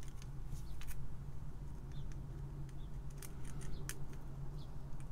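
Light, irregular clicks of IC sockets' metal pins and plastic bodies being pushed into and shifted about on a perforated prototyping board, over a steady low hum.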